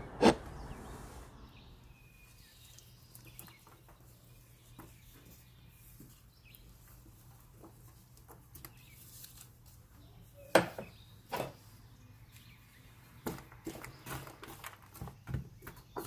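Scattered knocks and clicks of kitchen work over a steady low hum: a sharp knock at the start, two more about two-thirds of the way through, and a run of lighter clicks near the end.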